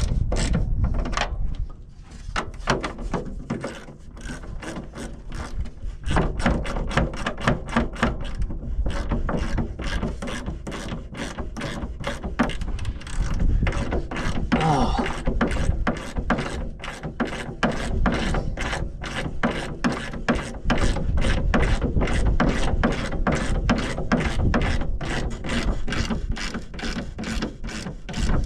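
Hand ratchet clicking in rapid runs as bolts are turned in on a tractor's fan shroud, with a quieter lull a few seconds in.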